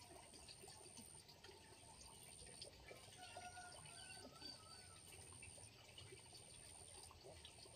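Near silence: faint outdoor ambience with a soft trickle of water, and a faint wavering call from about three to five seconds in.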